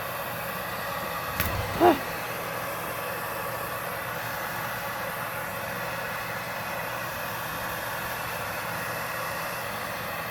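Hand-held hair dryer blowing steadily. About two seconds in, a click and then a brief wavering cry, the loudest moment.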